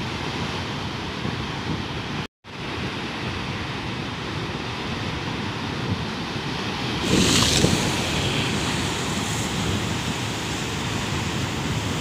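Rough sea surf breaking on and washing over rocks: a steady rush of churning water, swelling into a louder crash and splash about seven seconds in, with wind on the microphone. The sound cuts out for an instant about two seconds in.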